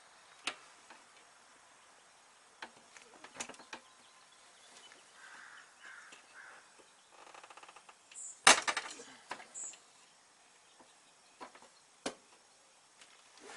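Scattered metal clicks and knocks from working a brake hard line and tools into place at the wheel well, with a brief rattle and then a louder cluster of clanks a little past halfway.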